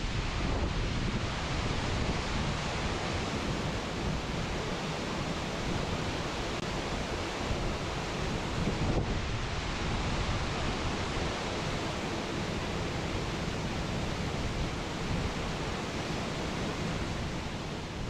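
A large waterfall pouring: a steady, even rushing noise that fades out near the end.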